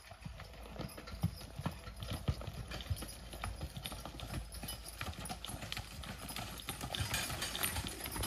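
A team of Belgian draft horses walking, their hooves clip-clopping in a steady run of irregular knocks.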